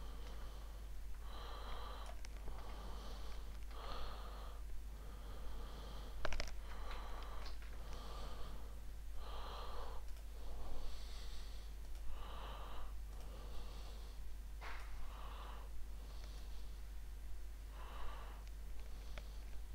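A person breathing close to the microphone, a soft breath every second or two, with two sharp clicks, one about six seconds in and one near fifteen seconds, over a steady low hum.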